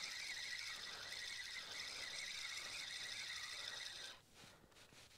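A steady, high-pitched chirring chorus of night insects, which cuts off sharply about four seconds in.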